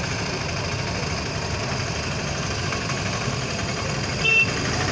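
Steady engine rumble of a large vehicle moving slowly, heard from on board, with a short high-pitched beep about four seconds in.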